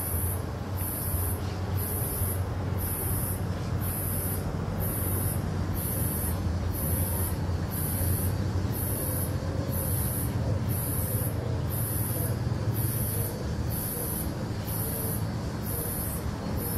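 Steady outdoor ambience of distant street traffic, a constant low rumble under an even hiss. A thin, very high-pitched pulsing sound repeats about once a second throughout.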